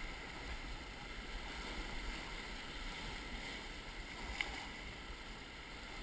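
Steady rush of river water around a whitewater raft, with the paddles at rest.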